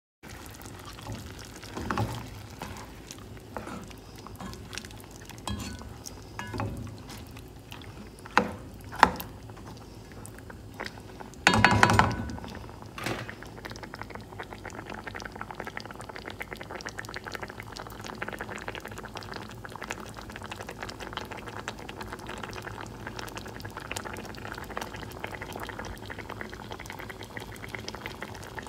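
Curry sauce with chicken feet and carrots simmering in a pan, bubbling steadily through the second half. In the first half there are several sharp knocks and clinks of cookware, the loudest a brief ringing clatter near the middle.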